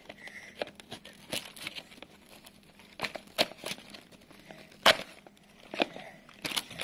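Plastic and cardboard toy packaging crinkling and tearing as it is pulled open by hand, in irregular sharp crackles, one louder crackle a little under five seconds in.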